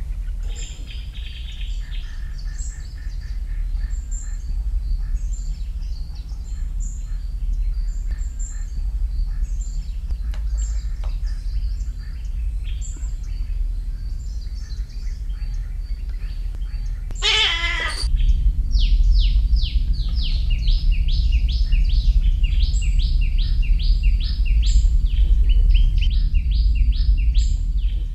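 Birds chirping over a low steady rumble: scattered high chirps at first, one loud wavering call about seventeen seconds in, then a rapid regular series of falling chirps, about two a second, to the end.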